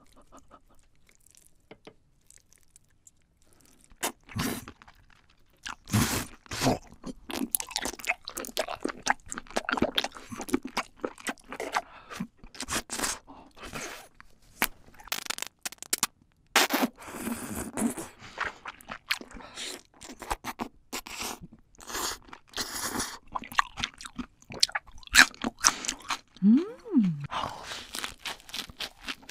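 Close-miked eating of raw squid and octopus: wet chewing and crunching, with many sharp mouth clicks and smacks, starting about four seconds in.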